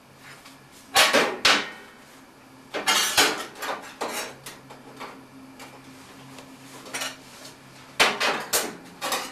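Small stainless steel sheet pieces clanking and clattering against each other and the metal bench as they are handled, in three groups of sharp, ringing clanks: about a second in, about three seconds in, and near the end.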